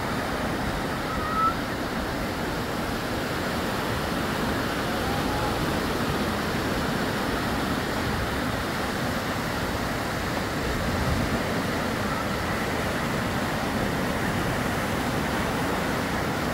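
Steady wash of small waves breaking on a sandy beach, with a few faint distant voices.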